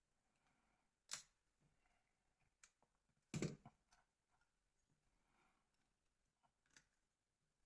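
Mostly near silence, broken by a few short clicks and taps of small phone parts being handled during disassembly. The loudest is a knock about three and a half seconds in.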